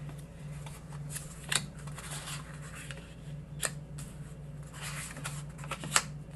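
Paper die-cut cards and vellum pieces being handled and shuffled, rustling, with sharp crisp snaps of paper about one and a half, three and a half and six seconds in, the last the loudest.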